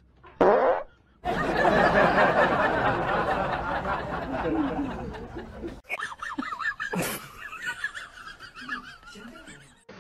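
A person laughing for several seconds, after a brief loud sound about half a second in; the laughter fades to quieter sounds after about six seconds.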